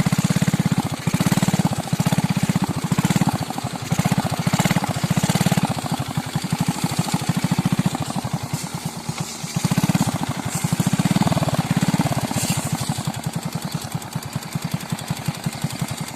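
Motor grandong, a stripped-down cargo motorcycle, running under way with a load, its small engine a rapid low thumping that swells and eases every second or so.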